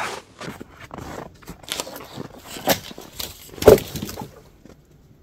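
Footsteps crunching in snow: a run of irregular crunches, the loudest about three and a half seconds in, dying away a little after four seconds.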